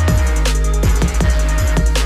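Background electronic music with a heavy bass line and a steady drum beat of kicks and hi-hats.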